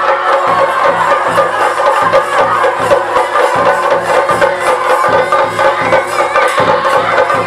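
Traditional percussion music: a steady run of drum beats, about three a second, with rapid cymbal strikes and a sustained pipe-like tone over them.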